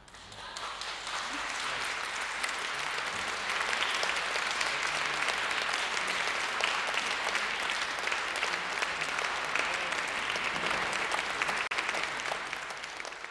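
Concert audience applauding after a live orchestral performance, swelling over the first couple of seconds into steady clapping that eases slightly near the end.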